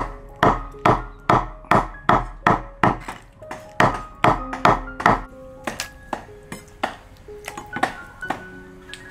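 A heavy kitchen knife chopping raw beef offal on a wooden chopping board: a steady run of sharp chops, about two and a half a second, that stops about five seconds in, followed by a few lighter cuts. Background music with plucked notes plays throughout.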